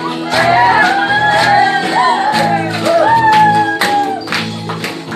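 Loud dance music with a singing voice over steady bass notes and a regular beat.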